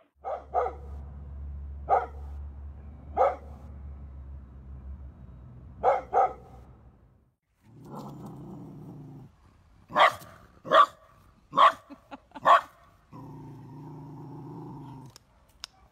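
A dog barking and growling warily at a garden statue: sharp single barks, a run of four loud barks about a second apart near the middle, and two stretches of low steady growling between them.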